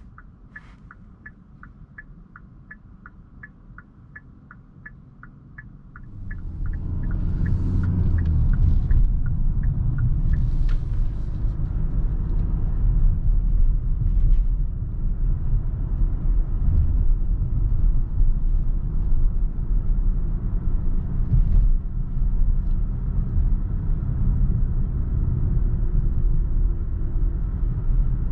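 Even indicator ticking, about three ticks a second, while the car is quiet. About six seconds in, the Kia Sorento's 2.2 diesel pulls away and a steady low rumble of engine and road noise takes over to the end.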